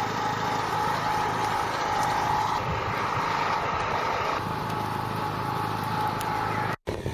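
Motor of a radio-controlled model aircraft running steadily at a constant pitch.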